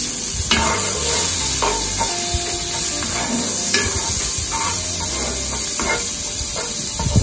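Diced onion, sweet pepper and garlic sizzling in butter in a cast-iron skillet, with a wooden spoon stirring and scraping through them several times.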